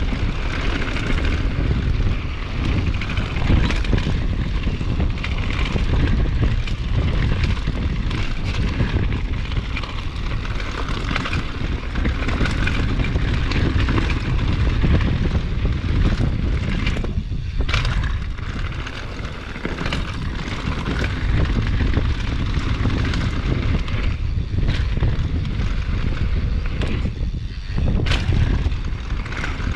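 Downhill mountain bike running fast down a dirt trail: wind rumbling over the camera microphone together with tyre and trail noise, and the bike knocking and rattling over bumps now and then.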